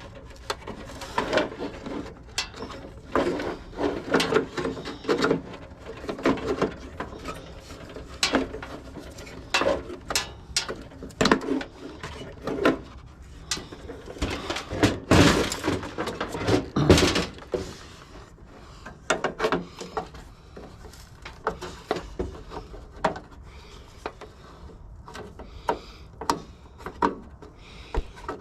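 Hand teardown of scrap copper parts: an irregular run of clicks, knocks and scrapes as parts are squeezed, pulled and popped loose, busiest about halfway through.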